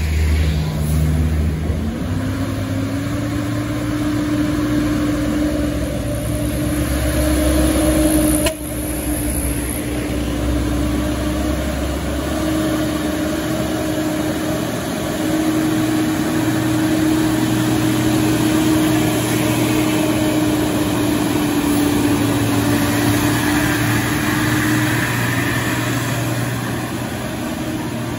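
Diesel engine of a heavily loaded tractor-trailer truck running steadily at low speed, its drone holding an even pitch as the truck rounds a bend and draws close. A single sharp click sounds about eight seconds in.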